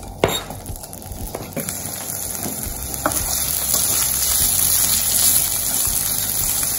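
Diced kielbasa sizzling in hot olive oil in a skillet as its fat starts to render, the sizzle growing louder from about three seconds in. A sharp knock near the start and a few light clicks come as a spatula stirs the pieces against the pan.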